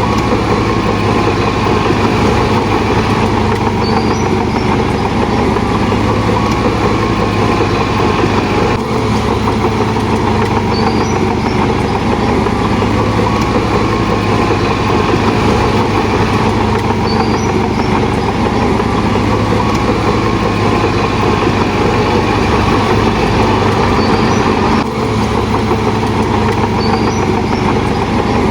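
Heavy diesel engine of earthmoving machinery running steadily and loudly, with a continuous low drone.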